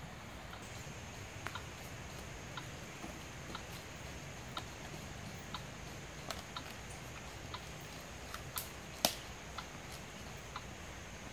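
Quiet forest background with faint, even ticking about twice a second over a steady high hiss, and a few sharp cracks, the loudest about nine seconds in.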